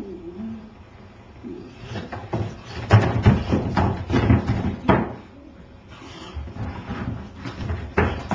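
Irregular thuds and knocks on a wooden stage floor from a dancer's feet and body: a quick uneven run of hits in the middle and one more sharp hit near the end.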